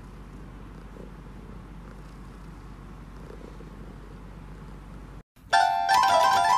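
A cat purring steadily and softly. After a brief break about five seconds in, an electronic keyboard comes in much louder, playing quick repeated notes.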